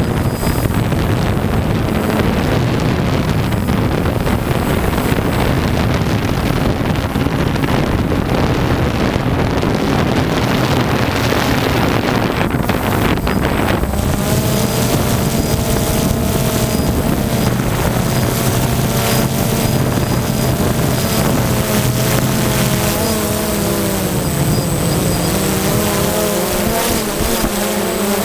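Multirotor camera drone's motors and propellers running steadily, with wind on the microphone; from about halfway a higher whine joins in and shifts in pitch as the motor speeds change.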